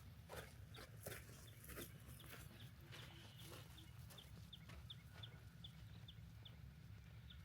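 Faint outdoor bird calls: a series of short high chirps, about three a second, over a low steady hum, with a few soft clicks in the first two seconds.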